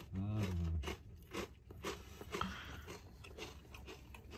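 Crisp crunching and chewing of Takis rolled tortilla chips close to the microphone, many short crunches in a row. A brief hummed voice sound comes in the first second.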